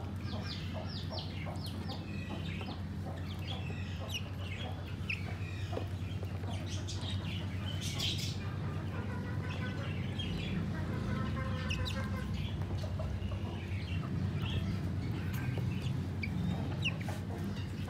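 A flock of sixteen-day-old broiler chicks peeping, many short high chirps overlapping irregularly, over a steady low hum.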